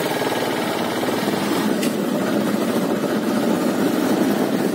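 Motorcycle engine running steadily as the bike rides on.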